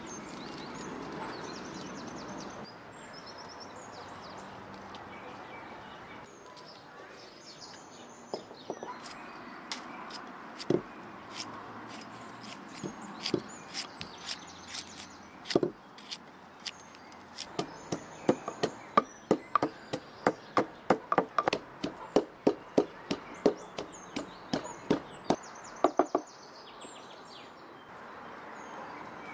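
Cleaver cutting a green pepper into small pieces over a wooden mortar: scattered sharp cuts, then a quick steady run of about three or four cuts a second for several seconds, stopping near the end. Birds chirp in the background.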